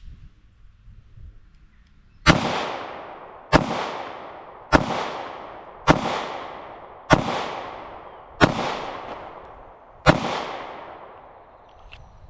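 Kimber Micro 9 9mm pistol fired seven times at a steady pace of about one shot a second, with a slightly longer pause before the last. Each shot is followed by a trailing echo.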